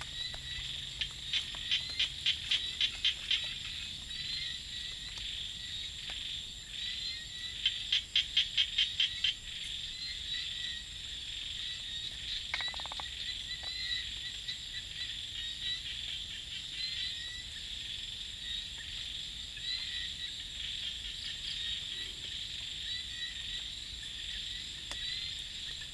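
Rice-field night chorus: a steady, high insect trill runs throughout, and small frogs call in two loud runs of rapid, even pulses, one about a second in and one about eight seconds in.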